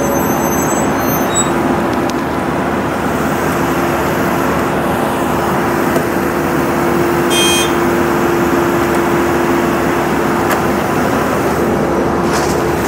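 Steady roar of aircraft noise on an airport apron, with a steady hum running through it. A short high-pitched beep sounds about seven seconds in.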